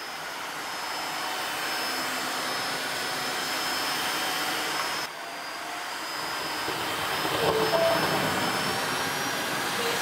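Tineco Floor ONE S5 cordless wet-dry vacuum mop running over a hard tile floor: a steady motor and suction noise with a thin high whine, dipping slightly about halfway through and getting a little louder and busier around three-quarters of the way in.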